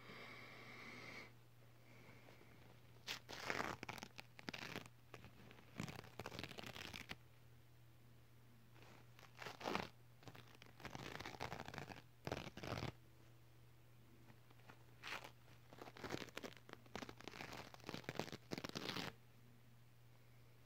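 A sheet of paper rubbed, crinkled and pulled across the camera lens right at the microphone, in a dozen or so irregular rustling bursts, with a short squeaky rub in the first second.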